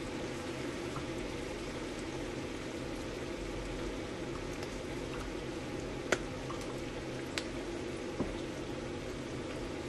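Pork belly adobo simmering in its soy-sauce liquid, bubbling steadily as the water boils down, with three sharp pops in the second half.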